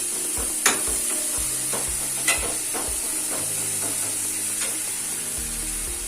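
Onion-tomato masala sizzling in hot oil in a pan while a spoon stirs it, with sharp clicks of the spoon against the pan about a second in and again past two seconds.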